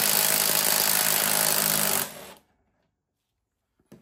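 Impact wrench running steadily as it spins out the long bolt that holds a mower-deck pulley; it cuts off about two seconds in.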